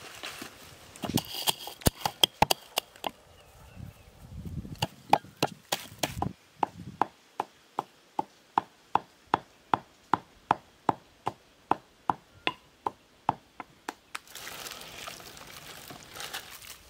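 Pestle pounding in an earthenware mortar: a few uneven knocks at first, then a steady run of sharp strikes, a little under three a second, that stops about three-quarters of the way through.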